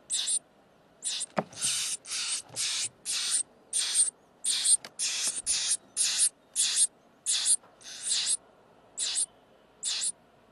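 Nestling bird begging: a run of short, hissy screeches, each under half a second, repeating about one and a half times a second, with a knock about a second and a half in.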